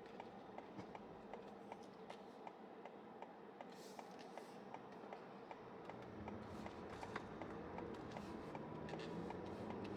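Car turn-signal indicator ticking steadily, about three clicks a second. From about six seconds in, a low engine and road rumble builds and grows louder.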